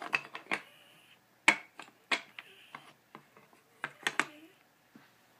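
Wooden jigsaw puzzle pieces clacking and knocking against a wooden tray puzzle board as they are handled and fitted: a string of sharp, irregular clicks, the loudest about a second and a half in.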